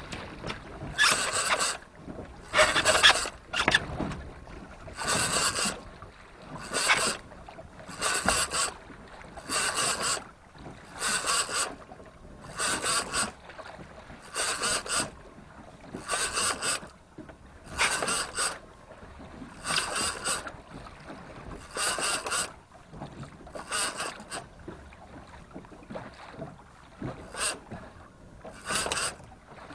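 Fishing reel being wound in short spurts, about one every two seconds, each a brief whirr of the reel's gears, as the rod is pumped and line taken in against a heavy hooked dusky grouper. A faint steady wind and sea noise lies underneath.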